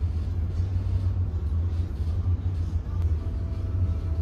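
Steady low rumble of a cargo ship underway, its engine and machinery heard as a deep hum, with faint rustles of paper as handbook pages are turned.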